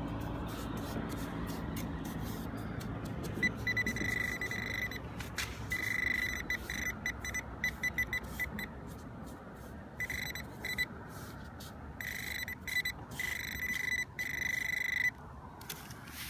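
Metal detector sounding a steady high tone, in short bursts and longer stretches, as it homes in on a target buried about six inches down in sand.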